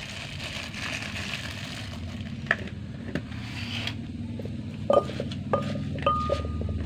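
Wooden pestle pounding fried dried mackerel in a clay mortar: scattered knocks, with three sharper strikes near the end each leaving a brief ringing tone.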